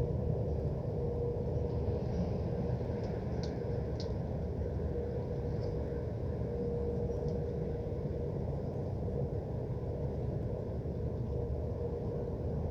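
Steady low industrial rumble from a foundry, with a thin humming tone that fades in and out over it and a few faint high ticks.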